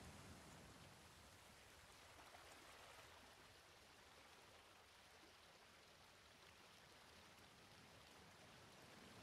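Near silence: a faint, even hiss with no distinct sounds in it.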